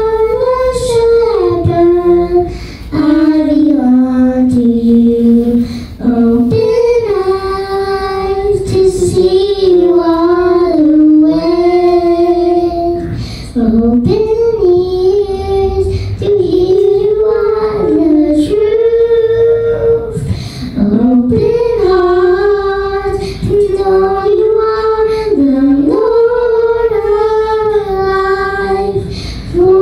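Children singing a slow hymn melody together into handheld microphones: long held notes in phrases of a few seconds, with short breaths between them.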